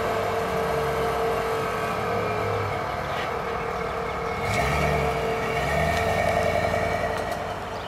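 Pro-charged (supercharged) 5.3-litre V8 of a 2000 Chevrolet Silverado idling, then pulling away with two short rises in engine speed, about four and a half and six seconds in. It fades near the end as the truck drives off.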